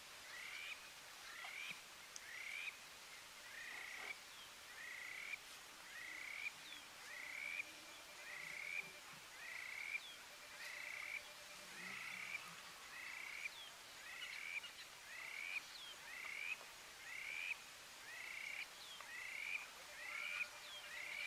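A small animal calling over and over at an even pace, a little faster than once a second, each call a short rising then falling note.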